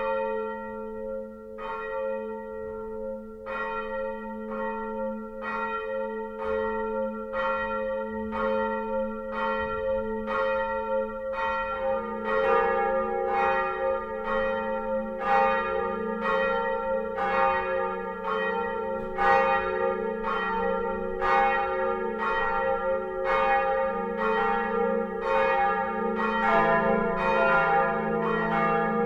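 Swinging bronze church bells of a five-bell peal cast in 1947, heard close up in the belfry. At first a single bell strikes about once every two seconds; more bells join about twelve seconds in and again near the end, as the full peal builds up.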